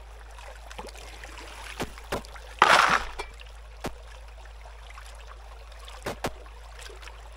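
Shallow creek water running with a steady hiss, a short splash about two and a half seconds in, and a few sharp clicks scattered through.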